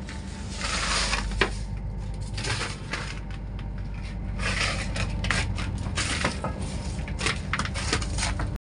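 Crushed ice in a fishing boat's fish hold crunching and shifting, with scattered clicks and knocks, over the steady low hum of the boat's engine.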